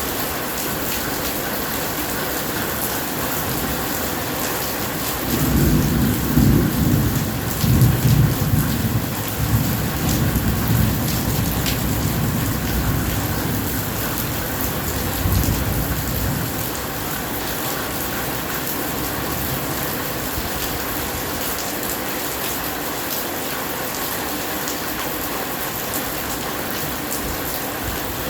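Steady heavy rain falling, with a long low thunder rumble that starts about five seconds in, is loudest a few seconds later, and rolls away over about ten seconds.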